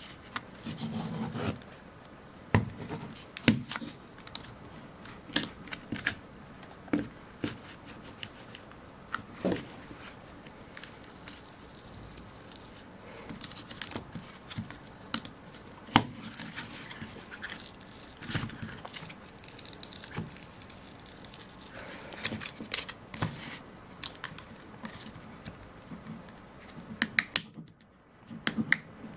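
Plastic pry pick scraping and clicking against a power bank's plastic frame and lithium battery, working at strong adhesive that holds the battery in. The clicks and scrapes come irregularly, with some sharper snaps among them.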